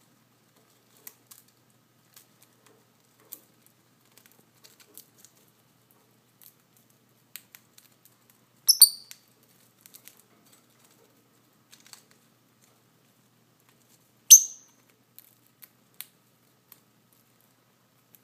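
Rosy-faced lovebirds picking at the strands of a preening toy: scattered faint clicks and rustles. Two sharp high chirps stand out, a quick cluster of a few notes about halfway through and a single one about five seconds later.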